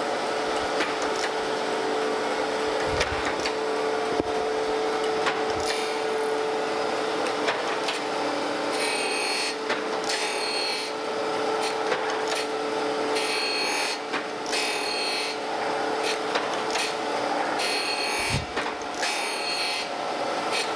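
Landis surface grinder running with a steady hum from the wheel spindle as the table traverses back and forth. The wheel grinds across a rough straight edge casting in repeated gritty passes, each a second or two long and coming regularly from about six seconds in, as the casting is cleaned up.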